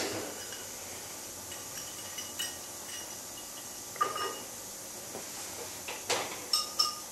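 Several light metallic clinks and knocks, a few of them ringing briefly, from a drilled metal wind-turbine hub plate and ratchet-strap hardware being handled on a wire cart.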